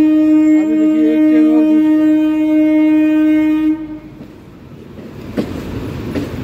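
A long, loud blast of an electric train's horn on one steady pitch, which cuts off about four seconds in. About a second later the rumble and clickety-clack of a local train's wheels on the tracks below begins.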